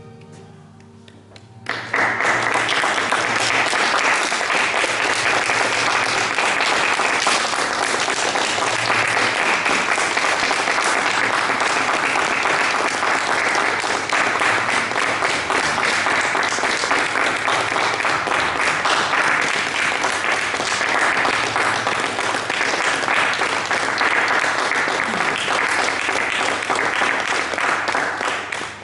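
Audience applauding steadily through a theatre curtain call, breaking in about two seconds in over the faint last notes of music.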